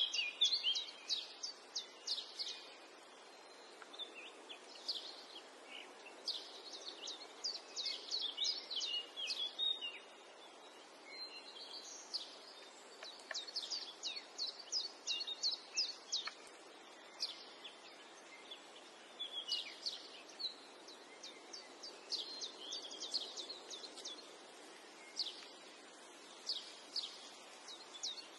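Small birds chirping in quick runs of short, high notes, some sliding down in pitch, over a faint steady hiss.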